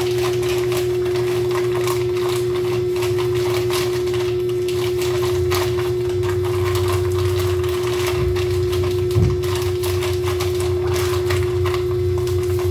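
Sugar being poured from a plastic bag into a pan on a gas burner: a scatter of small crackles and rustles, with a low thump about nine seconds in, under a steady hum-like tone that is louder than the pouring.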